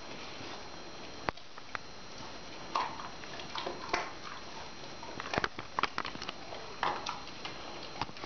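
A dog sniffing along a tile floor and crunching spilled dry cat-food kibble, in scattered short crunches and clicks.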